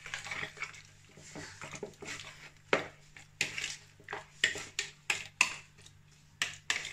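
Wire whisk scraping and clinking against the side of a bowl in irregular strokes as pieces of squid are stirred through a wet frying batter.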